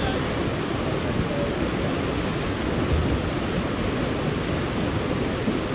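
Swollen, muddy river in flood rushing and churning over rapids: a loud, steady rush of water with no let-up.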